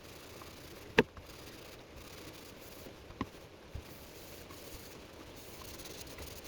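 A few sharp knocks and taps from objects being handled and set down on a work surface. The loudest comes about a second in and smaller ones follow around three seconds in, over a faint steady background.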